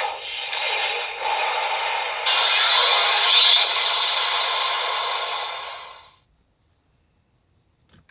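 Electronic finishing-attack sound effects for the Lightning Hornet key playing from a DX Kamen Rider Zero-One toy's small speaker. It is a dense, thin-sounding sequence with no bass that grows louder about two seconds in and stops about six seconds in.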